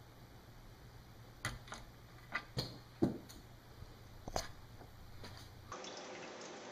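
A cat pawing at a glass tabletop and the pen lying on it: about seven light, sharp taps and clicks spread over three seconds. Near the end the sound cuts to a faint, steady room hiss.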